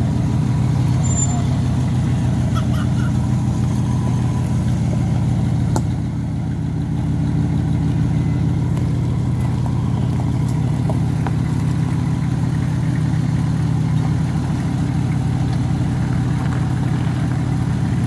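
Cadillac Sedan de Ville's V8 idling steadily, with a slight dip in level about six seconds in.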